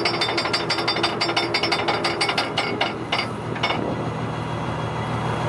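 Steady low drone of a fishing boat's engine, with a fast, even clatter of knocks like a machine rattling over it that stops about three and a half seconds in.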